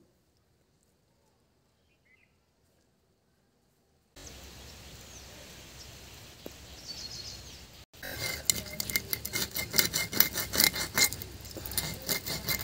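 A few birds chirping over faint outdoor background noise, then a run of quick, irregular clicks and clinks, like small hard objects or utensils knocking together.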